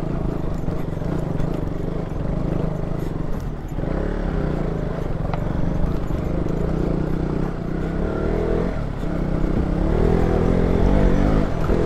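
KTM Duke 200 single-cylinder motorcycle engine running at low revs off-road, the engine note rising and falling as the throttle is worked over rough ground, with revs climbing near the end.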